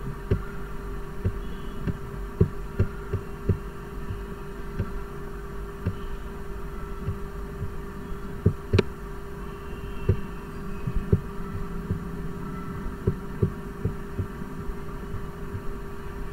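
A steady low electrical hum with soft, irregular knocks, about two a second, and one sharper click about halfway through.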